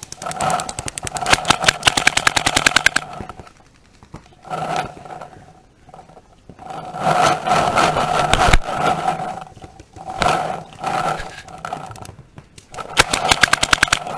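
Paintball markers firing in rapid strings of shots. A long string runs over the first three seconds, followed by several shorter bursts.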